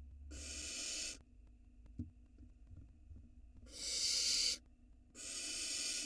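Barn owl nestlings giving their hissing, snore-like food-begging calls, three separate hisses about a second long each. There is a short click between the first and second hiss.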